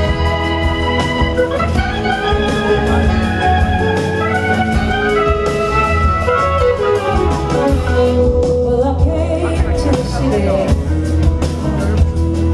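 Live blues-soul band playing a slow intro: sustained organ chords over bass and drums, with electric guitar lines that glide in pitch. A woman's singing voice comes in near the end.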